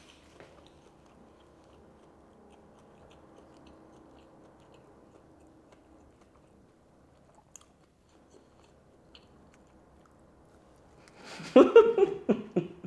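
A person chewing a toasted sandwich of crisp, breaded, deep-fried pork cutlet: quiet mouth sounds at first, then about eleven seconds in a louder bite with crunching, mixed with a short hum of the voice.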